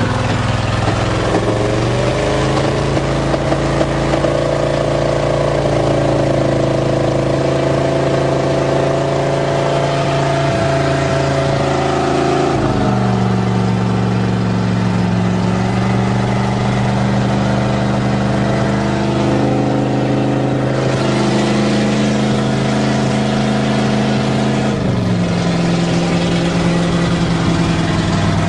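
1977 GMC truck's engine running cold just after a cold start, on its choke with the choke pull-off freshly readjusted. The engine speed steps up about two seconds in, drops about twelve seconds in, rises again around twenty seconds and settles lower near the end.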